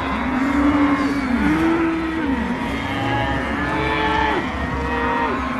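Exaggerated stomach-growling sound: a run of long, pitched growls, each about a second long, rising and falling and overlapping one another over a low steady rumble.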